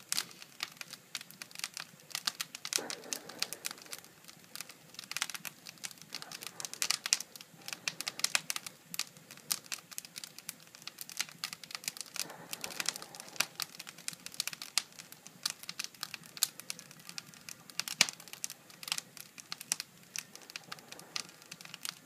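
Wood fire crackling, with dense irregular pops and snaps and a louder pop about eighteen seconds in.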